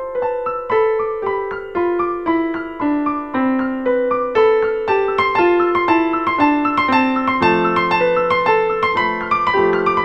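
Piano music with a melody of evenly paced notes that step downward, filled out by lower notes about three quarters of the way through.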